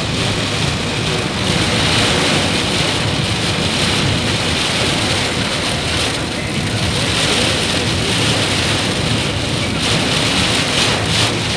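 Heavy rain falling on a car's roof and windshield, heard from inside the moving car over a steady low rumble of engine and road noise.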